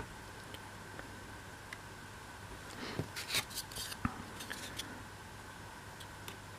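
Light clicks and small knocks of thin laser-cut MDF pieces being handled and slotted together, bunched together about halfway through, over a faint steady hum.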